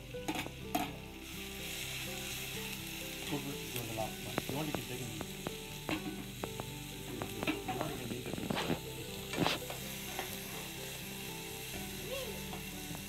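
Chopped red onions sizzling as they fry in hot coconut oil in a metal pan, stirred with a metal slotted spoon that scrapes and clicks against the pan. A few of the scrapes, a little past the middle, are louder than the rest.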